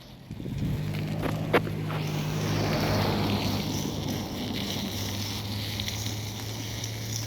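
A steady low engine hum, coming in about half a second in, with a single sharp click about a second and a half in.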